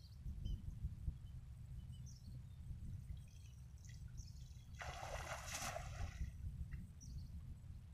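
A single splash of water lasting about a second, a little past halfway, over a steady low rumble, with faint high chirps scattered through.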